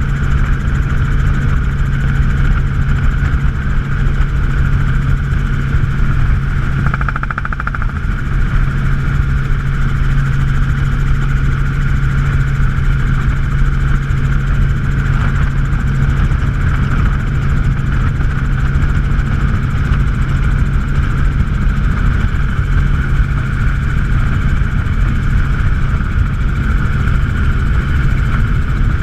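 Helicopter running steadily: a loud, constant low hum with a steady high whine above it, unchanging throughout.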